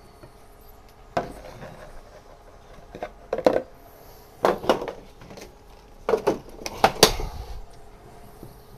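Short light knocks and scrapes of kitchen handling against wood, a handful spread over several seconds, as a pizza dough ball is set down and worked in flour.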